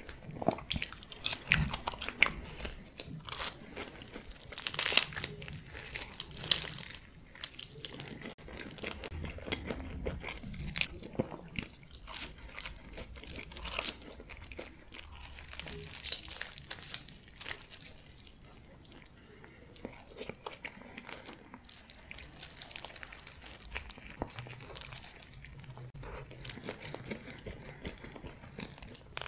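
Close-miked eating of a gyro pita wrap: irregular sharp bites and chewing, with crinkling of the paper wrapper round the pita. The biting is loudest in the first several seconds.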